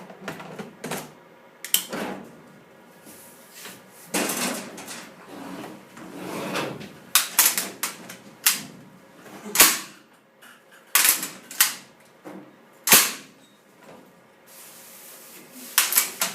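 Parts of an M240 machine gun being worked by hand: metal sliding and rasping, and a series of sharp metallic clacks, the loudest about ten and thirteen seconds in.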